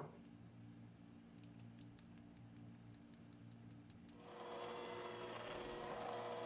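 A click and a run of faint, quick ticks, then an electric hand mixer starts about four seconds in and runs steadily, its beaters churning flour and cocoa into crumbly cookie dough in a glass bowl.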